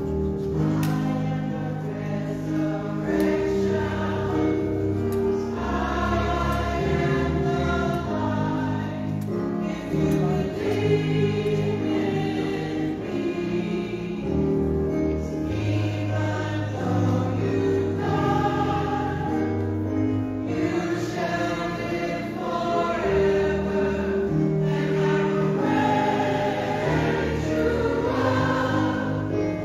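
Gospel choir singing.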